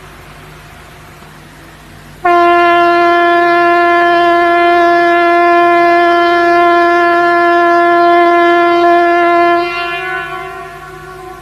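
A loud, steady, buzzy electronic alert tone held at one pitch, starting about two seconds in, lasting about seven seconds, then fading down. Before it comes only a low hum with faint static.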